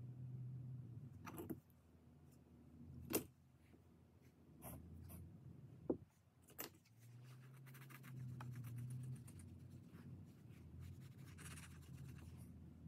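Hands and a small tool scratching and rubbing on leather-hard clay, with about five sharp taps and clicks in the first seven seconds. A low hum comes and goes underneath.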